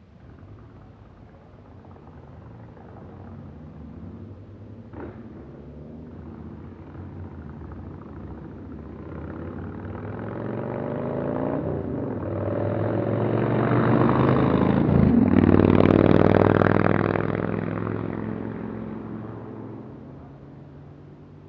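A motorcycle and a car approach along the road and drive past close by. Their engines grow louder to a peak about 15 to 16 seconds in, the engine note drops in pitch as they go by, and then they fade away.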